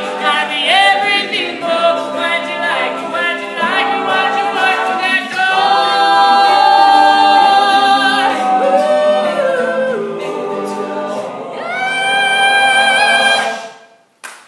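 Male a cappella group singing the closing bars of a pop song, a solo voice over the group's sung chords. It ends on a long held chord that cuts off sharply just before the end.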